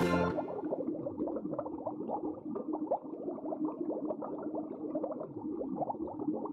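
Continuous muffled bubbling and gurgling water, a dense stream of small bubble pops. A last note of music cuts off at the start.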